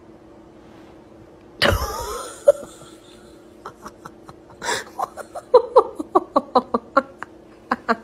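A sudden loud burst about a second and a half in, then a person laughing in short, rapid bursts.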